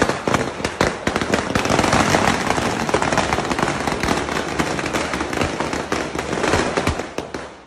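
Firecrackers going off on the ground in a rapid, continuous crackle of bangs that thins out and dies away near the end.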